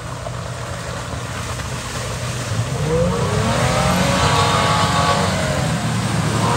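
An off-road 4x4's engine revving under load. It builds in loudness and rises in pitch about two and a half seconds in, holds high, then eases off near the end.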